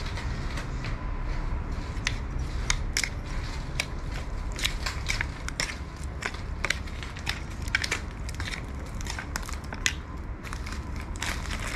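A metal spoon stirring and tossing a ceramic bowl of peeled kho palm fruits in a wet chili-and-seasoning dressing, with irregular clicks and scrapes against the bowl.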